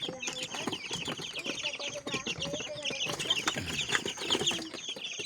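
A flock of native chickens clucking and calling, with many short overlapping high-pitched chirps.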